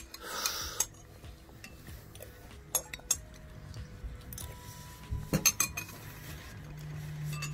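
Plastic baby spoon clinking and scraping against a bowl as broth is scooped up and fed: a short scrape just after the start, then separate clicks, with a quick cluster about five seconds in.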